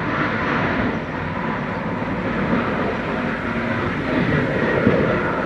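Loud, steady machinery noise from an industrial work site, an even din with no rhythm or breaks.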